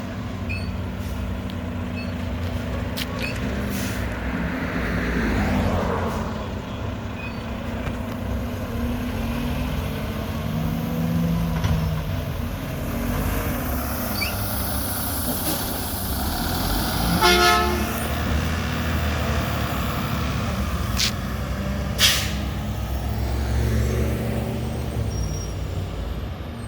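Heavy garbage truck's diesel engine running, with a short horn toot about two-thirds of the way through and a brief sharp air-brake hiss a few seconds later.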